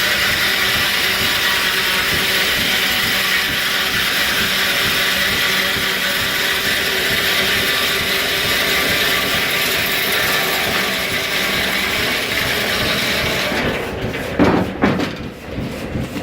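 1870s-era sawmill machinery running with a steady mechanical clatter of gears and ratcheting parts. Near the end the steady run gives way to a few separate knocks.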